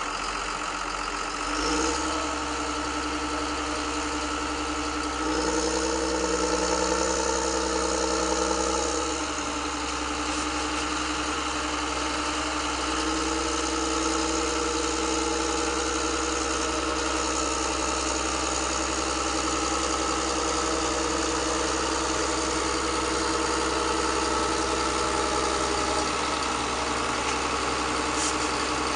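Steady idling engine sound of radio-controlled model construction machines, with several held tones, shifting about 2 seconds in and louder for a few seconds from about 5 seconds in.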